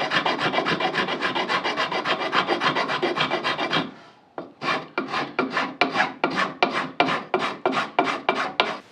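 Hand file rasping across wooden trim, smoothing and rounding the coping-saw-cut edges. Quick back-and-forth strokes, about five or six a second, break off briefly just before halfway, then resume as slower strokes, about three a second, and stop abruptly at the end.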